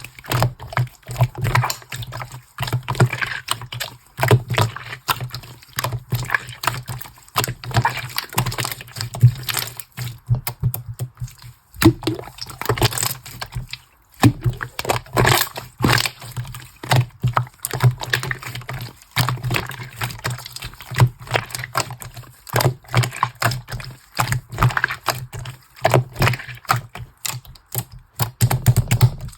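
Slime being squeezed, pressed and stretched by hand, making rapid irregular clicking and popping sounds.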